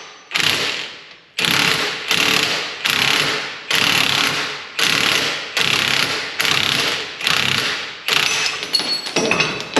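Impact wrench hammering in repeated short bursts, about one a second, as it drives a press to force the seized U-joint caps out of a front axle yoke. Metal rings briefly near the end.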